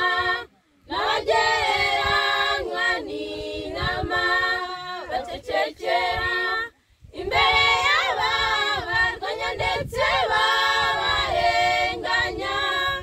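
Young women's choir singing a Christian hymn in Kinyarwanda a cappella, several voices together, with two brief breaks between phrases: about half a second in and about seven seconds in.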